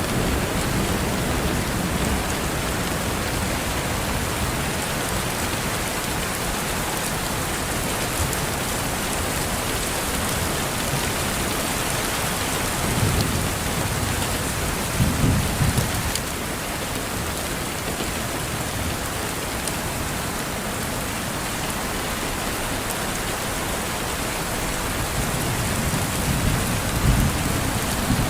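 Steady rain, raindrops hitting a window. Two low rumbles of thunder swell up, one about halfway through and one near the end.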